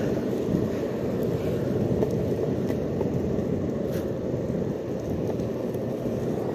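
Skateboard wheels rolling over pavement, a steady low rumble.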